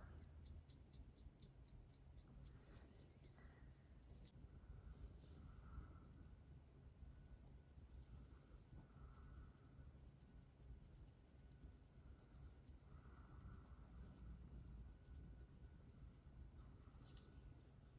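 Long artificial fingernails scratching through the hair on a dandruff-flaked scalp: a fast series of short scratching strokes, faint.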